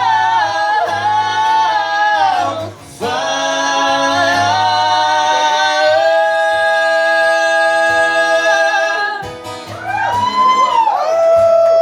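Music: long held wordless sung notes over guitar accompaniment, with a brief break about 3 seconds in and notes that swoop up and down near the end.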